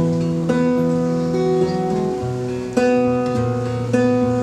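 Acoustic guitar strumming sustained chords, with no singing, with fresh strums about half a second in, near the three-second mark and about a second later.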